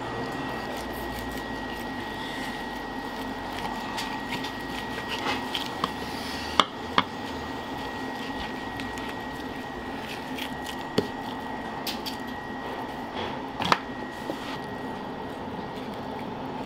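Kitchen knife cutting tuna on a wooden cutting board: a few sharp knocks as the blade meets the board, over a steady background hum with a faint high whine.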